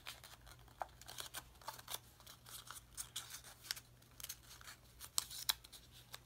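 Origami paper crackling and crinkling in the hands as folds in it are sunk and pressed, a scatter of short faint crackles, over a steady low hum.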